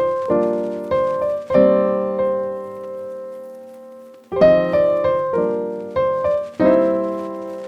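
Background music: keyboard chords in an electric-piano sound, each struck and left to fade, with one long chord dying away in the middle before a new run of chords.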